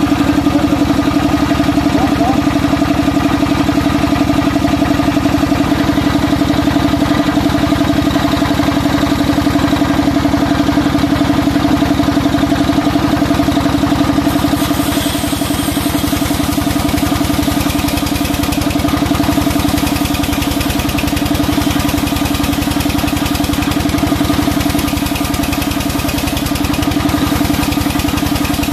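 Sawmill band saw running steadily with a strong, even hum while a large timber beam is pushed through it; a brighter hiss joins about halfway through.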